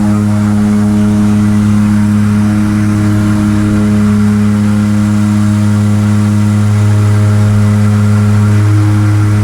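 A motor running at a steady speed: an even, unchanging drone with a strong low hum and a stack of overtones above it.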